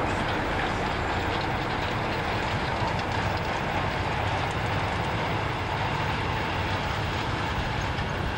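Passenger train's coaches running past, a loud steady rumble of wheels on the rails that starts to die away at the very end.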